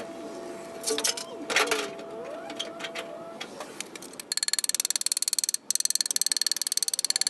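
A couple of sharp metal knocks, then about four seconds in a power tool starts, chattering very rapidly with a steady high whine and cutting out briefly once before running on.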